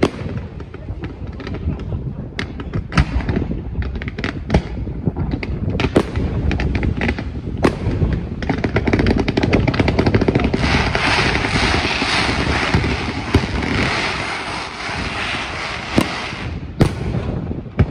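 Aerial firework shells bursting with sharp bangs every second or two. From about halfway through there is a long, dense run of crackling, and two more bangs come near the end.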